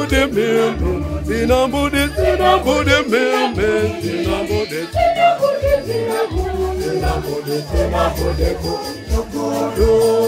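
Choir singing a Swahili gospel song over a steady beat, with shaken kayamba rattles and a bass line.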